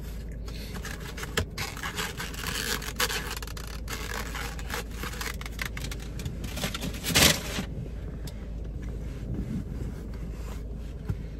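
Handling of a black plastic takeout clamshell: scattered light clicks and rubbing of plastic against clothing and the car seat, with one louder rustle about seven seconds in, over a low steady hum.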